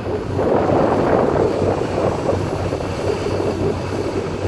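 Strong wind buffeting the microphone, a steady rushing noise that is loudest in the first couple of seconds, over a low steady hum.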